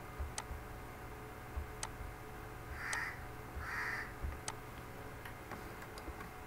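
Faint, scattered computer mouse clicks. About three seconds in come two short harsh calls less than a second apart, which are the loudest sounds.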